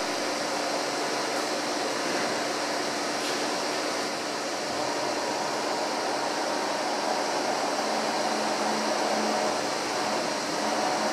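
Hurco BMC 30 HT/M vertical machining centre powered up: a steady hum and whir with a few held tones.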